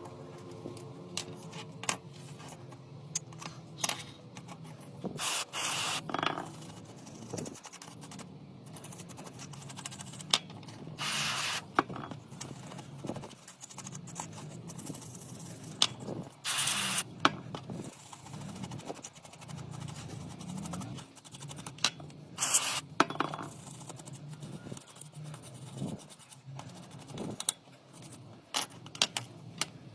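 Four short spray bursts of about a second each, between small clicks, taps and scraping, as from hand work on a small object.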